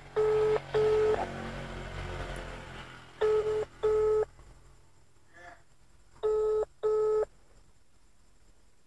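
Outgoing phone call ringing tone (ringback) from a phone's loudspeaker: double rings of two short beeps close together, repeating about every three seconds, three times. The call is ringing unanswered at the other end.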